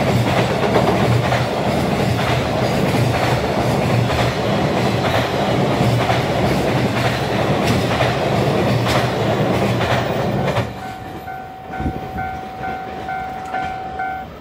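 Freight train of container flat wagons passing close by, its wheels clattering steadily over the rail joints. About ten seconds in the train noise cuts off suddenly, giving way to a quieter steady ringing tone that pulses about twice a second.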